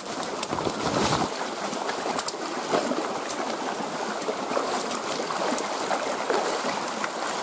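Stream water flowing steadily, with a few sharp clicks and a low rumble in the first second or so.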